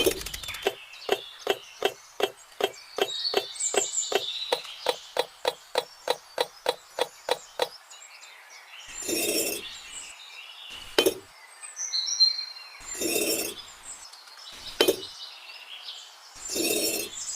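Rapid, evenly spaced tapping, about three or four sharp taps a second, which stops after about eight seconds. It is followed by about five separate louder knocks and scrapes spaced a couple of seconds apart.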